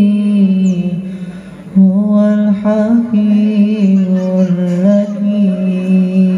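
Voices chanting in unison over a loudspeaker, holding long, steady notes. The sound drops away briefly about a second in and returns strongly just under two seconds in.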